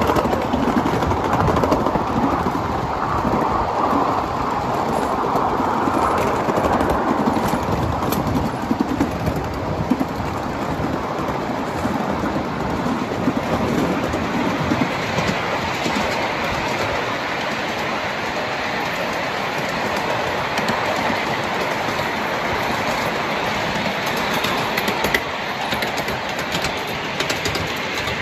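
Running sound of a 7.5-inch gauge ride-on live steam train, its wheels rolling and clicking over the rails. About halfway through the sound turns brighter and higher as the train rolls onto a steel trestle.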